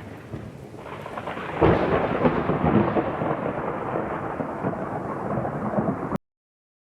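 Thunderstorm sound effect: rain with a crack of thunder about a second and a half in that rumbles on, then cuts off abruptly near the end.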